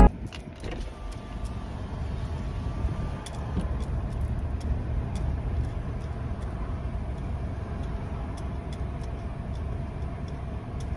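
Car idling, heard from inside the cabin: a steady low rumble with a few faint scattered clicks.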